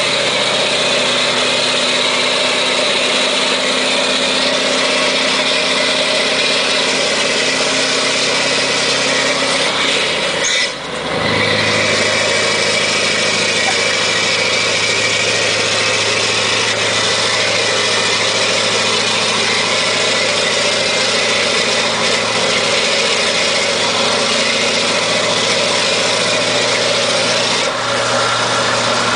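Scania R580's straight-piped V8 diesel running steadily under way, heard from inside the cab. About eleven seconds in, the sound dips for a moment and then settles at a slightly different pitch.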